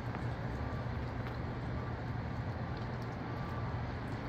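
Steady wind blowing, an even noise with a low rumble underneath.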